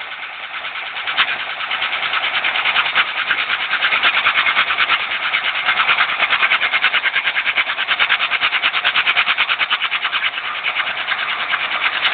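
Wheel repair machine running with a rapid, even pulsing, growing louder about two seconds in.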